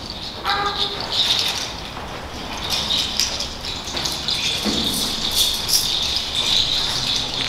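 Hand rattle shaken loosely in uneven bursts, not yet in a steady beat, with a dull low thump about four and a half seconds in.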